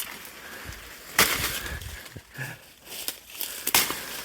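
A felled castor plant's hollow, watery stalk being chopped into pieces with a blade: two hard chops about a second and three and a half seconds in, with smaller cracks and knocks of splitting stem between them.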